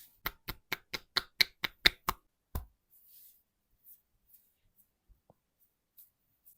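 Percussive massage strokes of the hands on the body: about nine quick, sharp strikes at about four a second, then one duller thump half a second later.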